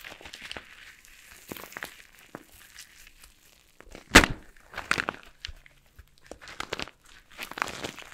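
Starch-coated soap crunching as it is cut and crushed: scattered dry crackles, with one sharp, loud crack about four seconds in followed by a cluster of crunches.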